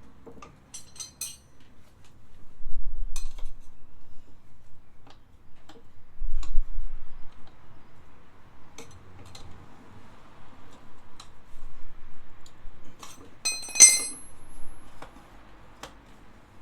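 Metal hand tools and scooter parts clinking and tapping in scattered handling sounds, with a couple of dull knocks and one bright ringing metal clink near the end.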